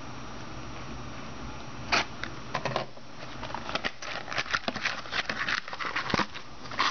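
Cardboard trading-card box being opened and its wrapped packs handled: scattered clicks and crinkling rustles starting about two seconds in, thickest near the end.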